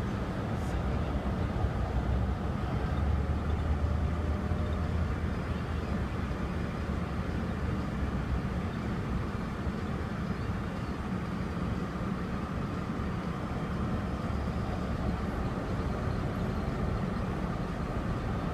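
Steady low rumble of a motor vehicle running, with an even noisy hiss over it and no sharp events.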